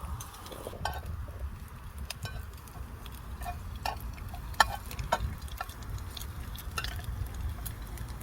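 A metal utensil clinking, tapping and scraping against dishes in short, irregular strikes, one sharper clink about halfway through, over a steady low rumble.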